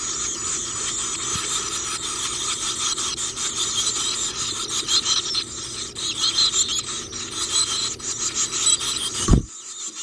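Black-capped chickadee nestlings begging for food: a dense, continuous chorus of rapid high-pitched calls with low rustling underneath. A sharp thump comes about nine seconds in, and the calling drops away after it.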